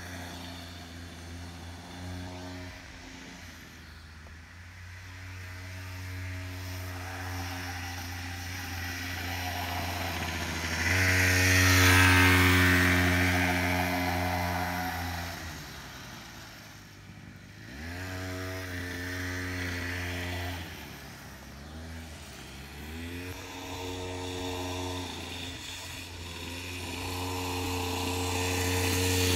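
Small youth dirt bike's engine running as it is ridden around, the pitch rising and falling with the throttle. It grows loudest about a third of the way in, drops away and revs back up twice just past the middle, and grows louder again near the end.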